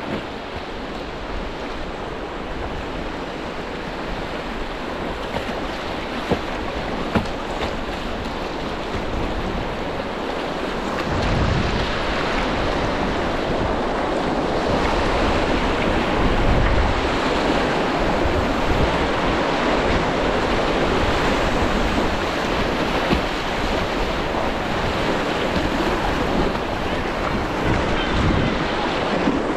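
Rushing, splashing water of a shallow river rapid around a whitewater kayak, with paddle strokes in the water. The rush gets louder about ten seconds in as the boat runs through rougher water, and there are occasional low gusts of wind on the microphone.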